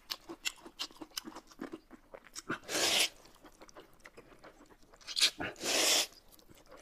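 Eating sounds: quick wet chewing clicks, broken by two loud slurps of noodles, about three seconds in and again near six seconds.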